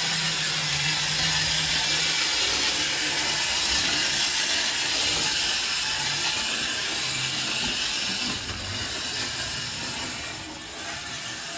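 Schylling Lionel wind-up hand car running on tinplate toy train track: the clockwork spring motor whirring and the wheels rattling along the rails. It gets a little quieter from about eight seconds in as the spring runs down.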